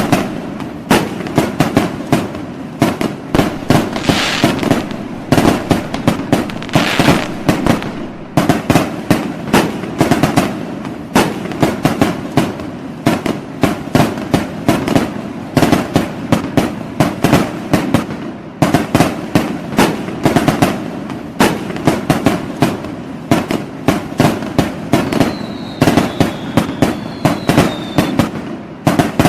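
New Year fireworks going off in a dense, unbroken run of bangs and crackles, several every second. A few short whistles sound near the end.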